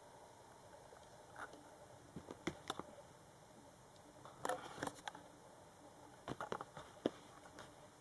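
Faint, scattered scratching and tapping in small clusters, with one sharper click near the end: a Scottish fold kitten pawing and clawing at a burlap toy mouse and a fabric play mat.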